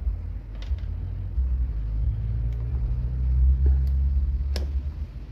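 A steady low rumble, with a few light clicks as the plastic housing of a chainsaw is pressed into place by hand.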